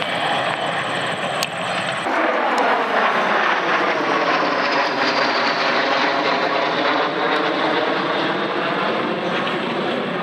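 A formation of L-39 jets flying past low, their turbofan whine swelling about two seconds in and then falling in pitch as they go by.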